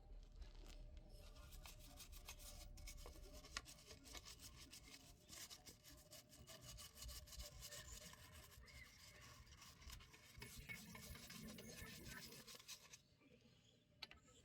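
Faint, busy rubbing and scrubbing as a cleaning tool is worked over grimy motorcycle parts around the chain and sprocket to break up grease with chain cleaner. It stops about 13 seconds in.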